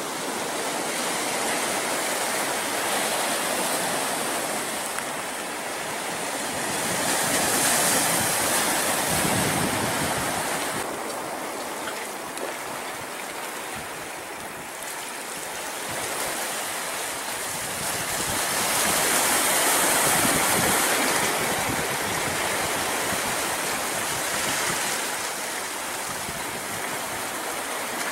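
Pacific Ocean surf washing onto a beach: a steady rush of water that swells and eases slowly, with two louder surges about twelve seconds apart.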